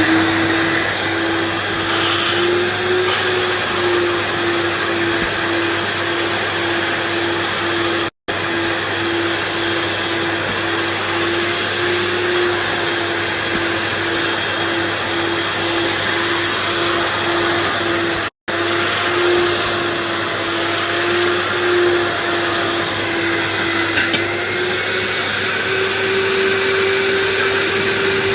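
A 90-litre wet/dry vacuum cleaner with three motors running steadily while drawing water out of a carpet: a constant whine over rushing air. It cuts out for an instant twice, and its pitch rises slightly near the end.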